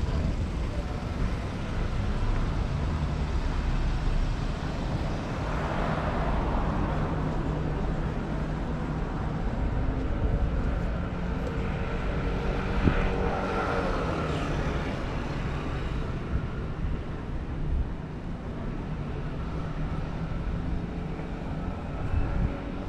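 City road traffic: vehicle engines running with a steady low hum, and louder swells as vehicles pass about six seconds and about thirteen seconds in.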